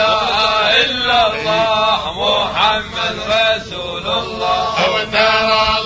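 Men's voices singing a tahlīla, a devotional chant, in long melodic phrases with held, wavering notes and no clear words.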